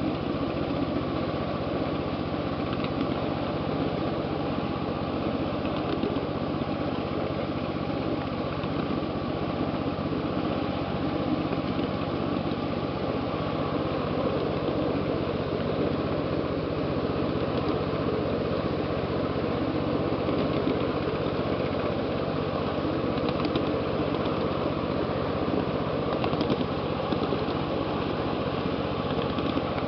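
1/8th-scale ride-on backyard train moving steadily along its track: a steady engine drone mixed with the rumble of the cars running on the rails.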